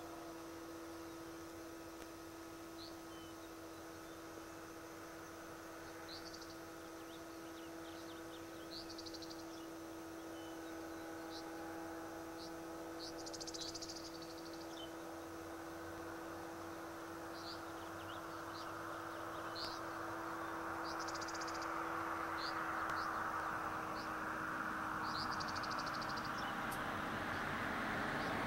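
Outdoor rural ambience: short bird chirps and a few buzzy trills over a steady hum. A broad rushing noise swells and grows louder through the last ten seconds.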